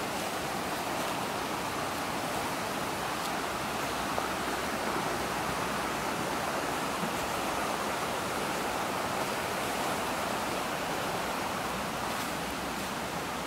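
Steady rushing of a creek's water over rocks, an even hiss with no break.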